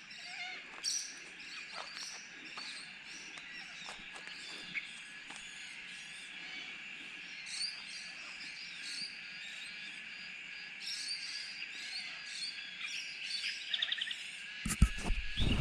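Outdoor bush ambience: a steady high-pitched insect chorus with scattered bird chirps and calls over it. A brief louder rustle near the end.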